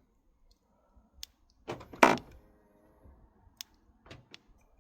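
A car's fuel cap area making its odd "ah" sound as the car is unlocked: a click, a sharper knock about two seconds in, then a short pitched moan lasting under a second, followed by a few light clicks.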